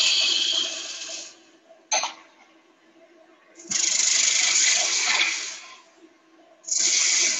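Gouge cutting a spinning wooden blank on a wood lathe: three separate cuts, each a loud hissing rush lasting one to two seconds, with a short sharp tick between the first and second. A faint steady hum from the lathe runs underneath.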